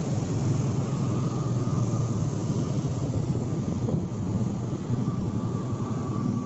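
Bus engines idling: a steady low rumble with a faint high whine.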